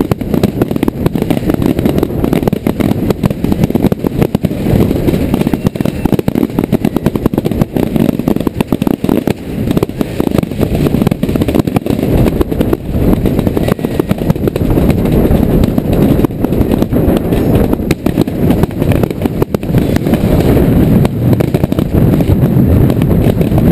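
Fireworks finale: aerial shells bursting in quick, overlapping succession, an unbroken run of low booms.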